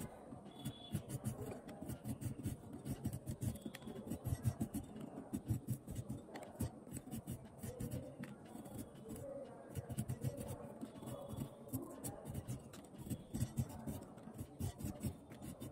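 Green hog plums peeled against a fixed boti blade: a run of short, irregular scraping strokes, a few a second, as the skin is shaved off.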